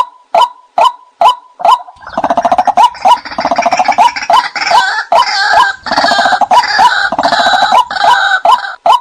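White-breasted waterhen calls played as a decoy lure: short repeated notes about two a second, then from about two seconds in a loud, harsh run of croaking calls over them, falling back to the lone repeated notes near the end.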